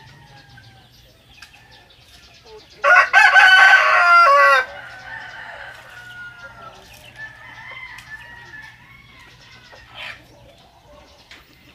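A rooster crows once, loud, for nearly two seconds, starting about three seconds in. Faint calls from the foraging chicken flock sound before and after it.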